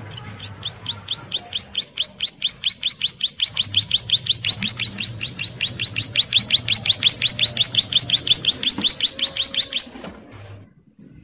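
A prinia (ciblek sawah) calling in a long, fast series of sharp, down-slurred chirps, about five or six a second, growing louder as it goes and then breaking off abruptly just before the end.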